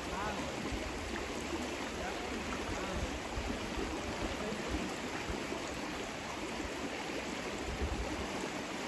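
Shallow, rocky mountain river flowing over rocks and riffles: a steady rush of running water.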